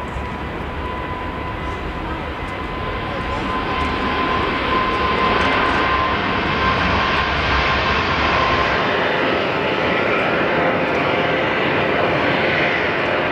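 Jet engines of a Boeing 777 at takeoff power during its takeoff roll and liftoff, a steady roar that grows louder. About nine seconds in the sound changes abruptly to a four-engined Airbus A340 on its takeoff run, with less low rumble.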